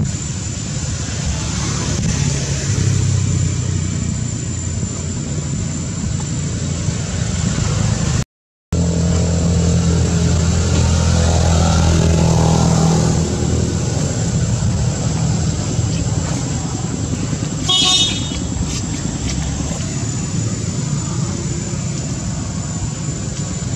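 Steady outdoor road-traffic noise, with an engine running louder for a few seconds a little before halfway and a brief high-pitched toot about three-quarters of the way through. The sound drops out for a moment about a third of the way in.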